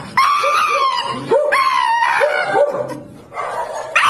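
A Shiba Inu giving long, high-pitched screaming cries, two drawn-out ones in the first two seconds, then a short lull and another starting near the end.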